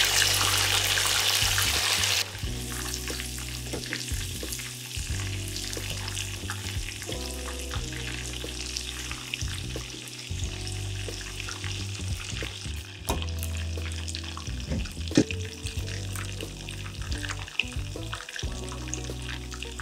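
Chicken pieces deep-frying in hot oil in a steel saucepan: a steady sizzle with scattered crackles and pops. It is loud for the first two seconds and then settles lower.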